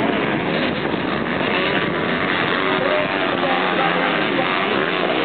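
Dirt bike engines revving and easing off as the bikes ride the track, with music playing over them.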